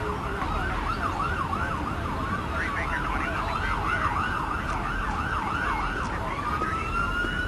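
Police siren yelping, its pitch sweeping quickly up and down about three times a second. About six seconds in it changes to a slower wail that rises and holds high, over a low rumble.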